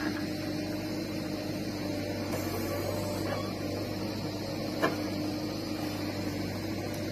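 JCB backhoe loader's diesel engine running steadily as the backhoe bucket scoops soil, with a single sharp knock about five seconds in.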